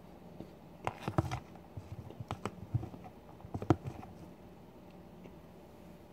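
Clicks and knocks of a plastic food tub and its utensil being handled, in an irregular run with a louder knock about a second in and another past three and a half seconds.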